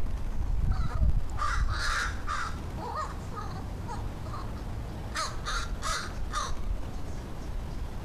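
American crows calling: three calls about a second and a half in, a few fainter ones after, then a quicker run of four calls past the middle. A low wind rumble on the microphone runs underneath.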